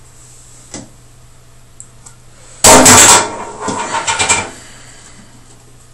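A faint click, then about two and a half seconds in a sudden, very loud thump that overloads the recording, followed by a second of quieter knocking and rattling.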